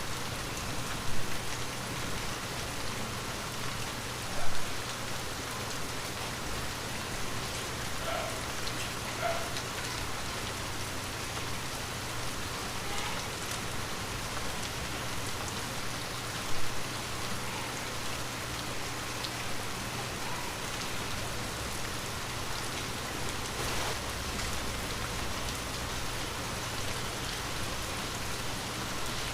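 Light rain falling steadily, with a faint low hum under it. Three brief louder thumps stand out: about a second in, a few seconds later, and around the middle.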